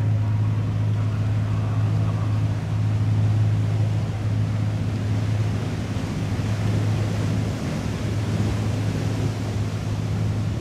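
Cruise ship's machinery giving a steady low hum across the water, with a haze of wind and water noise.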